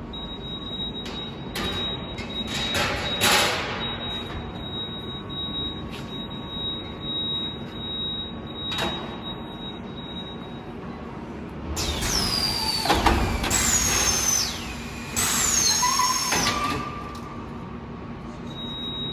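Automatic oven-cavity sheet-metal bending and spot welding machine running through its cycle. A steady high whine with short bursts of noise comes first; then, about two-thirds in, the machine gets louder with whines that slide down in pitch.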